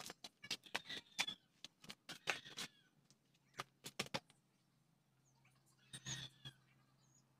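Faint, irregular sharp clicks and knocks, several a second for about four seconds, then a short cluster near six seconds, from someone moving about and handling things at a bare motorcycle frame.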